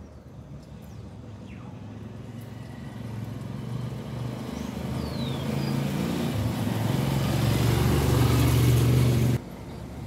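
A motor vehicle's engine approaching, growing steadily louder for about nine seconds and then cutting off suddenly near the end. A bird gives a short falling whistle about halfway through.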